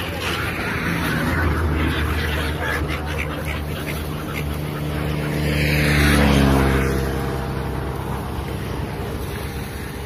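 A motor vehicle's engine passing close by over a background of traffic, growing louder to a peak about six seconds in, then dropping in pitch as it goes past and fades.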